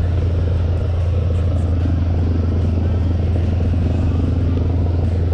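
Airboat engine idling: a loud, steady low drone.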